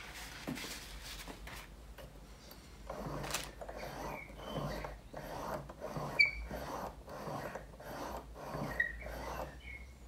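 Handling noises on a workbench: a run of short rubbing strokes about every half second, with brief high squeaks and one sharp click about six seconds in.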